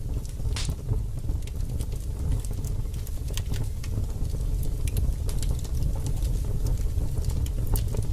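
Wood fire burning: irregular sharp crackles and pops over a steady low rumble.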